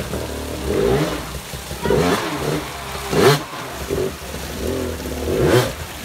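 Dirt bike engine revving in several short surges, rising and falling in pitch, as the rider blips the throttle to climb a rock ledge. The loudest surge comes about halfway through.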